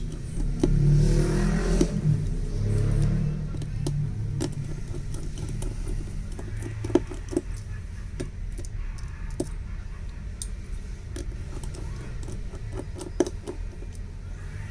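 Small metallic clicks and ticks of a screwdriver and tiny screws being handled on a phone during disassembly, scattered irregularly over a steady low hum.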